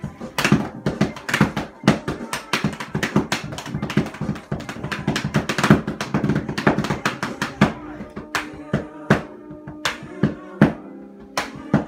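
Drumsticks beating a laundry basket and a pillow used as a makeshift drum kit, hands only with no kick: a fast run of sharp hits that thins to sparser, spaced strokes about eight seconds in. A song plays along underneath.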